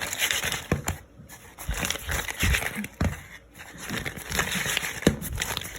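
Chicken pieces being stirred and tossed in sauce in a pan: irregular scraping with sharp knocks of the utensil against the pan.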